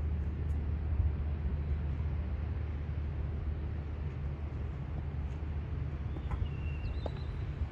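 Steady low outdoor rumble, with a brief high-pitched chirp about six seconds in.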